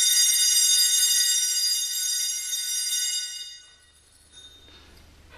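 Altar bells rung at the elevation of the consecrated host, marking the consecration: a bright, high ringing of several tones that fades away about three and a half seconds in.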